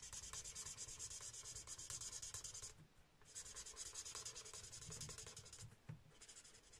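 Alcohol marker's bullet tip rubbing quickly over cardstock as it blends colour, a faint rapid scratchy rasp that pauses briefly about three seconds in.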